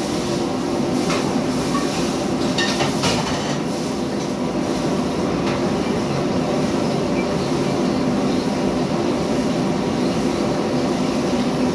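Steady roar of a commercial kitchen's gas wok burners and extractor hood fan. A few metal clanks of a ladle against a wok come in the first three seconds.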